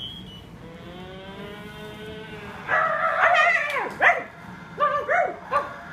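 A faint, drawn-out whine, then dog-like barks and yelps: a run of them about three seconds in and three short ones near the end.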